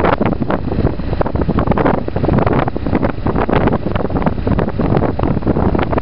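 Wind buffeting hard on the microphone of a moving motorcycle, a constant irregular gusty rush, with the motorcycle's engine running underneath as a steady low rumble.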